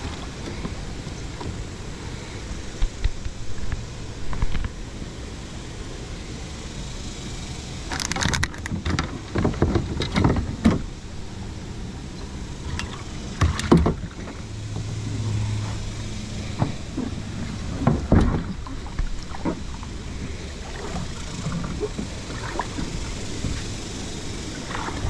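Knocks, clunks and scrapes of a plastic kayak and the fishing gear in it being handled, in a cluster about a third of the way in and a few more later, over steady background noise.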